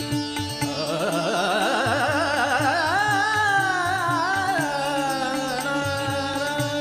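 Indian-style background music: a voice enters about a second in, singing a long, heavily ornamented melody that wavers in pitch, over a steady drone and repeated low drum strokes.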